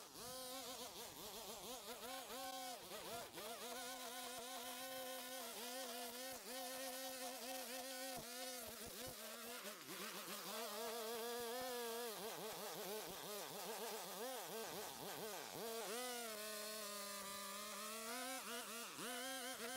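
Small motor of a handheld yard-work power tool buzzing at a high, steady pitch that wavers slightly up and down, sagging briefly under load near the end before picking back up.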